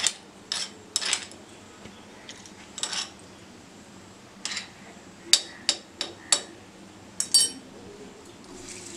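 Stone roller of a shil-nora grinding stone clacking and scraping on the flat stone slab while grinding a spice paste: about a dozen short, sharp knocks, unevenly spaced.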